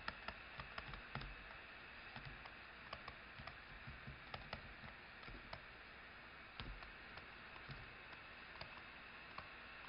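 Faint, irregular clicks and taps of a stylus writing on a tablet screen, over quiet room tone.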